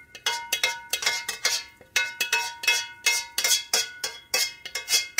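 Metal spoon knocking and scraping against a stainless steel bowl to empty the crab-and-egg mixture into the soup pot: a quick run of ringing clinks, about three a second, that stops sharply at the end.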